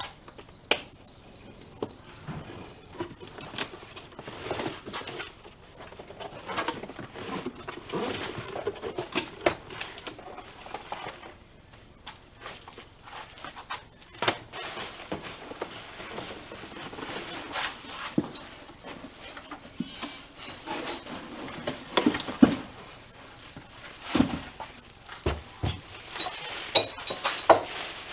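Insects calling without pause: a steady high trill and a fast pulsing chirp. Over them come scattered metal clinks and knocks of hand tools working on the engine.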